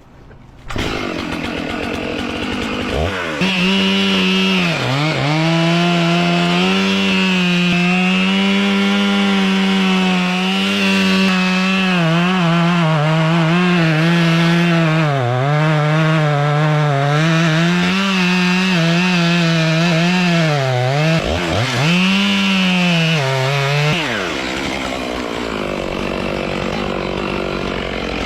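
Chainsaw cutting through a tree at full throttle, its pitch sagging several times as the chain bogs down under load in the wood. About 24 seconds in the throttle is released and the engine drops back to a lower, quieter note.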